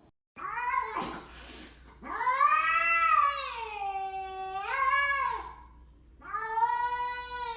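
Domestic cat yowling in three long, drawn-out calls, the middle one the longest, its pitch rising, sinking and rising again near the end; the angry-sounding yowl of a displeased cat.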